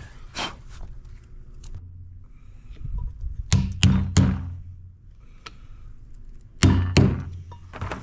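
Sharp knocks and taps of hand tools on the steel gland of a hydraulic cylinder during seal installation, loudest as three knocks about halfway through and two more close together near the end.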